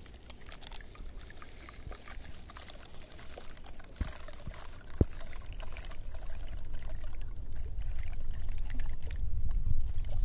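Water-like pouring and trickling sound picked up with a microphone pressed against a cactus, slowly growing louder, with a few small knocks.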